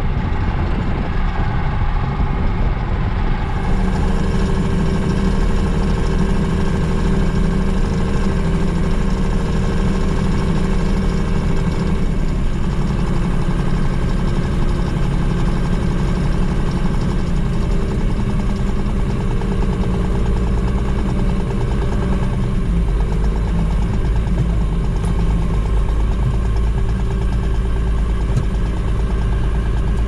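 A John Deere farm machine's diesel engine runs steadily, heard from inside its cab as it drives. The low drone grows heavier about two-thirds of the way through.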